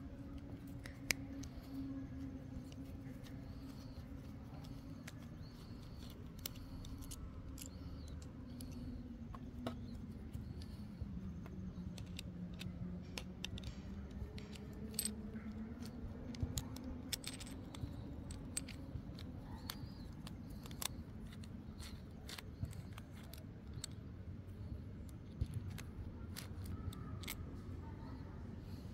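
Phillips screwdriver working the small screws out of a three-position handlebar switch's clamp: scattered small clicks and ticks of metal on metal and of the handled parts. A low hum sits underneath, sinking in pitch midway and rising again.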